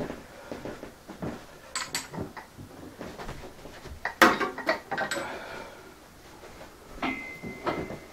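Plate-loaded anvil horn stub, steel weight plates on a handle, being carried and set down on a digital platform scale: scattered footsteps and light metal clinks, then a loud clank of the plates about four seconds in. Near the end a steady electronic beep lasts about a second as the scale reads the weight.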